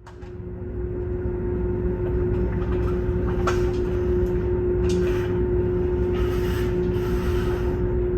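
Steady low mechanical rumble with a constant mid-pitched hum, fading in over the first second or two, with a few brief hissing noises along the way.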